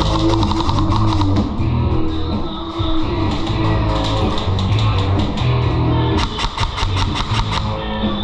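Rock music with guitar and bass over a steady beat, with a fast run of sharp clicks about six seconds in.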